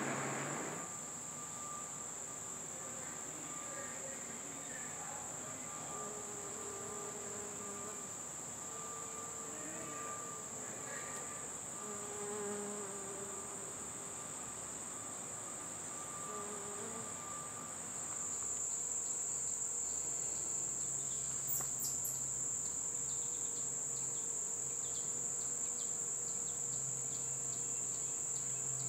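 Steady high-pitched chorus of singing insects in late-summer vegetation, rising in level about two thirds of the way in, when a low steady hum also comes in underneath.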